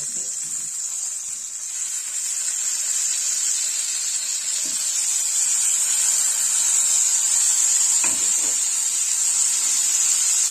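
Hot oil sizzling in a frying pan as skewers of curd-marinated paneer, capsicum and cherry tomatoes fry: a steady, high hiss that grows a little louder.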